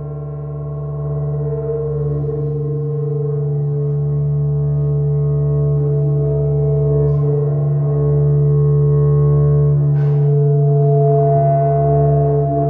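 Live amplified drone music: a steady hum of many layered, sustained tones that barely change, with a faint click about ten seconds in.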